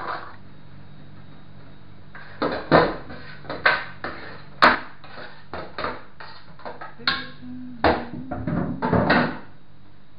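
Irregular knocks and clatters of raw pork chunks and a wooden cutting board against an aluminium pot, as the meat is tipped and pushed off the board into the pot. The knocks start about two seconds in and stop about a second before the end.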